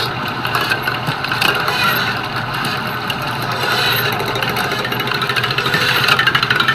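A vehicle engine running, with a fast pulsing that grows louder near the end.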